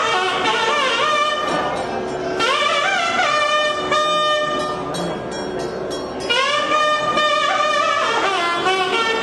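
Nadaswaram, the South Indian double-reed temple pipe, playing a melody of long held notes with gliding, ornamented bends, over a steady drone note.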